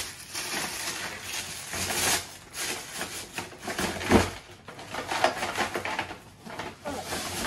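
Toy packaging being handled and opened: irregular rustling and crinkling with small knocks, one firmer knock about four seconds in.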